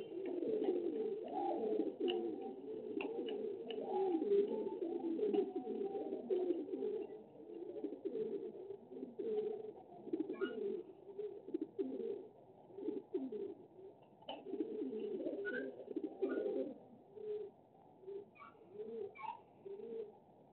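Pigeons cooing, several overlapping at first, then thinning to separate short coos about a second apart near the end, heard through a CCTV camera's microphone.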